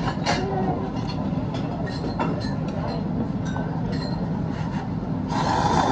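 Noodles being slurped and chewed, in short strokes with a few light clicks, ending in one long, loud slurp near the end, over a steady low background rumble.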